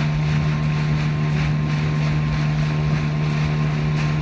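Outboard motor of a small open boat running steadily at cruising speed, a constant engine hum, with water rushing past the hull.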